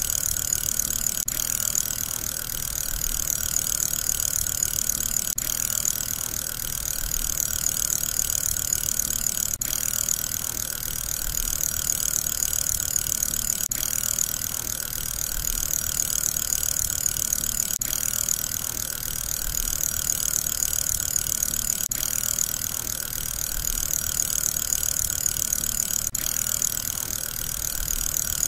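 Steady whirring of a spinning fidget spinner's ball bearing, repeating as a short loop with a tiny break about every four seconds.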